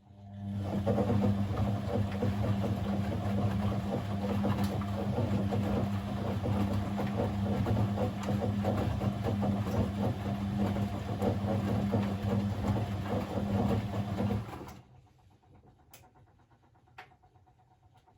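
Blomberg 240W washing machine's drum motor switching on with a click and turning the drum with a steady hum, then stopping abruptly about 15 seconds in. A few faint clicks follow in the pause.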